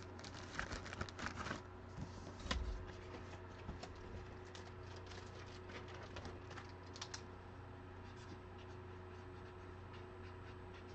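Faint handling noise, light clicks and rustles, in the first few seconds, then mostly a steady low hum with a few scattered faint ticks.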